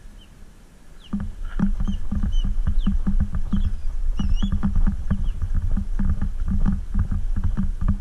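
Fishing rod and reel working a pencil popper on the retrieve: a quick, rhythmic run of knocks and clicks, about three a second, starting about a second in. A few high chirps sound over it.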